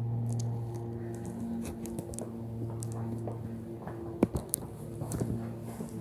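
Soft background music of held low chords. A few sharp clicks and steps come in the second half.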